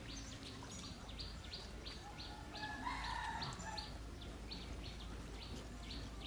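A bird repeating a short high chirp about three times a second, with a fainter drawn-out call about three seconds in.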